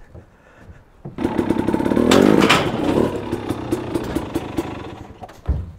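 A KTM dirt bike's engine running at low revs with some clatter while the bike is loaded into a pickup bed. It starts about a second in, is loudest around two seconds in, then fades.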